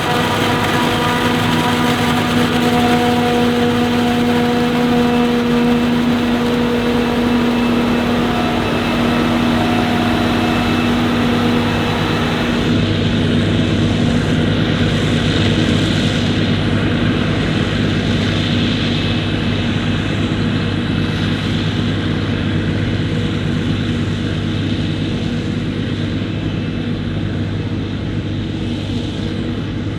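Heavy farm machinery engines running steadily, with several engine tones held throughout. The sound changes abruptly about 13 seconds in, with a stronger low tone from then on.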